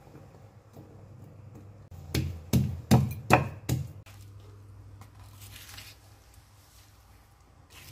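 About six quick, loud knocks on a stone mortar (cobek) holding coarsely ground red chilies and shallots, followed by softer scraping as a spatula gathers the sambal around the stone bowl.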